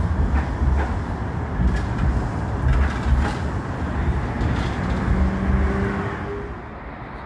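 Bombardier M5000 light-rail tram running past close along the platform: a steady low rumble with a few sharp clicks from the wheels on the rails and a short steady hum about five seconds in. The sound falls away just after six seconds as the tram clears.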